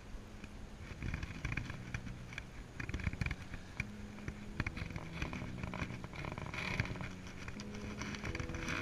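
Baitcasting reel being cranked on a lure retrieve: a whirring gear sound with irregular clicks and handling knocks, over faint electronic background music.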